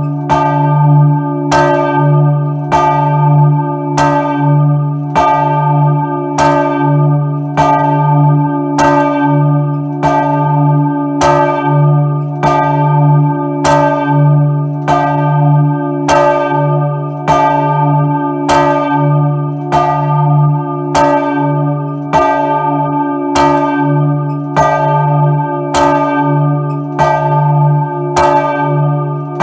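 The large church bell Maria, swung by a hand-pulled rope and heard up close in the belfry. Its clapper strikes about once a second in an even rhythm, and each stroke rings out over a deep hum that carries on between strokes.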